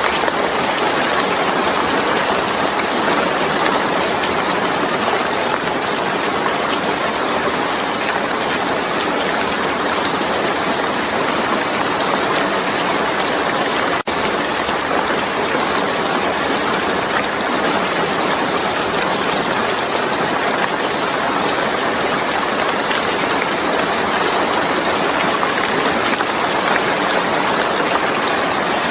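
Steady, even rain: a dense hiss of falling water with no distinct drops, broken once by a split-second dropout about halfway through.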